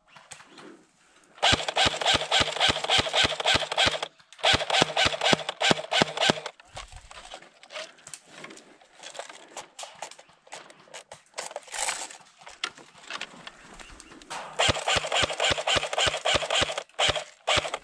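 Airsoft electric guns firing on full auto: three long bursts of rapid clicking, with scattered single shots in between.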